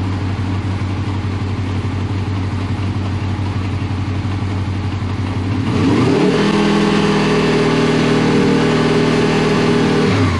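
Honda VFR800 VTEC's V4 engine running in gear at steady revs, held up so the gear indicator can learn the gear. About six seconds in the revs climb quickly to a higher steady note, then fall back just before the end.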